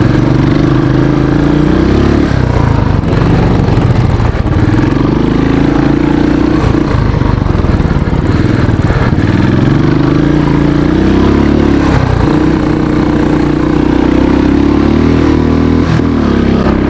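Motorcycle engine revving hard under acceleration on a dirt track. Its pitch climbs and then drops back several times as the gears change, over wind noise on the onboard microphone.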